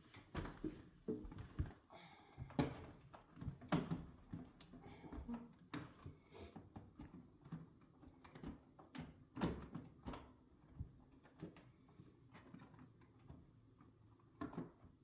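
Irregular clicks and light knocks of zip ties being snipped off a refrigerator's evaporator coil and the parts being handled, a few sharper snaps standing out among quieter handling noises.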